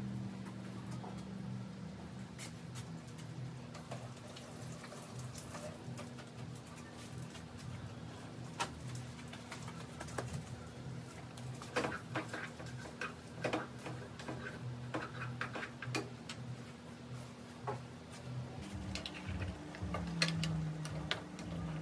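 Kitchen work sounds: scattered clicks, taps and scrapes of utensils and cookware being handled, over a steady low hum. Near the end a spoon stirs chicken in a frying pan.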